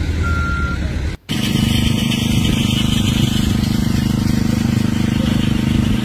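A heavy vehicle's reversing alarm beeps over engine noise. After a brief dropout about a second in, a steady engine hum follows.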